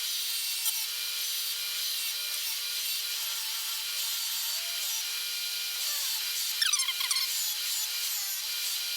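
Bench grinder's wire wheel scrubbing carbon off an engine valve: a steady motor hum under a constant scratchy hiss, with a brief falling squeal about seven seconds in.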